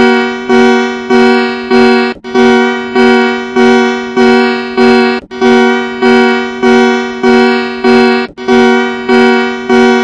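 Emergency alert (EAS-style) alarm tone run through audio effects: one buzzy electronic note repeating in short beeps that fade out, about three every two seconds, with a slightly longer break every three seconds or so.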